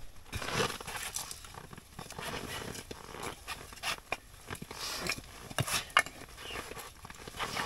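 Irregular rustling and scraping with scattered short knocks, the sharpest a few around five and a half to six seconds in, as split birch firewood is handled at a tent doorway.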